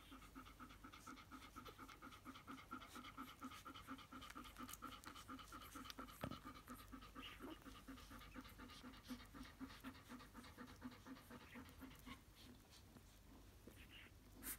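Golden retriever mother panting, faint and rhythmic at about four breaths a second, over her nursing newborn puppies, with soft clicks from their suckling. The panting fades out about twelve seconds in. There is a single sharp knock about six seconds in.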